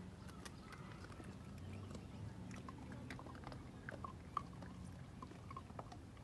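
Puppies eating from a metal bowl: soft chewing and smacking with many small scattered clicks, and one sharper click about four seconds in.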